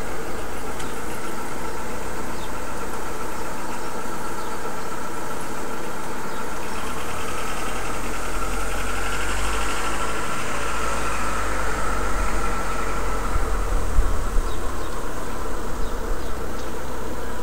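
A steady mechanical hum with a car passing on the street. Its low rumble builds in the second half and swells unevenly.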